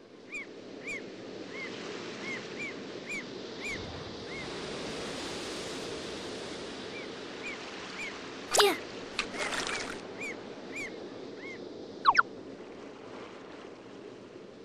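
Beach ambience: steady wash of surf, with a short chirping bird call repeated again and again. Two louder bird cries come about two-thirds of the way through and again a few seconds later.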